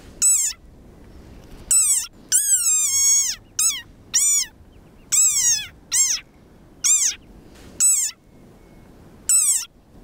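Desert rain frog (Breviceps macrops) giving its defensive squeak: about ten loud, high-pitched squeaks in a row with short pauses, each sliding down in pitch, one near three seconds in drawn out longer. It squeaks like this when it feels threatened, to scare off the intruder.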